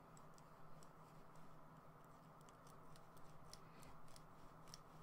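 Near silence: a few faint, scattered light clicks of plastic model kit parts being handled, over a low steady hum.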